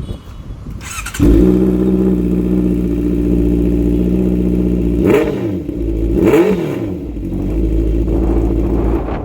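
Honda CBR650R inline-four motorcycle engine with an aftermarket Barrel full-system exhaust, starting about a second in and then idling steadily. Past the middle come two short throttle blips about a second apart, each rising and falling in pitch, before it settles back to idle.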